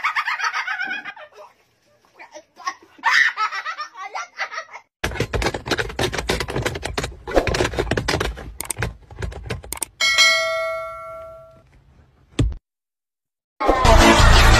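A burst of shrieking laughter, then about five seconds of rapid clattering knocks. A single bell chime rings out and fades, like a subscribe-button notification bell. A click follows, and loud music starts near the end.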